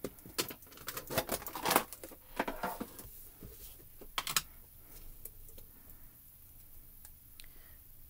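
Light clicks, taps and rustles of hands handling craft supplies on a work surface: plastic ink cube pads in their tin and a card panel being moved. A flurry of taps over the first three seconds and a louder pair just after four seconds, then only faint handling noise.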